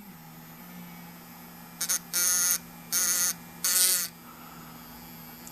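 Battery electric toothbrush motor running with a steady hum, driving a homemade lock pick bolted to its head. Between about two and four seconds in, the vibrating pick is held against a piece of tin three times, and each time it rattles loudly in a harsh buzz lasting under a second.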